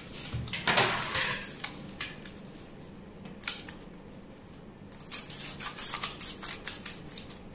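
Scissors cutting through a paper sleeve pattern in a run of short snips, with a quieter stretch in the middle.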